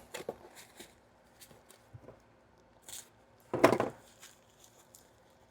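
Light clicks and knocks of a box and its contents being handled on a workbench, with a louder clatter a little past halfway.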